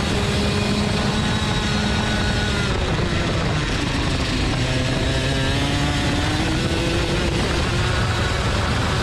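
Racing go-kart engine at full speed, heard close from onboard with wind rushing past. Its pitch drops about three seconds in as the kart slows for a corner, then climbs steadily as it accelerates out again.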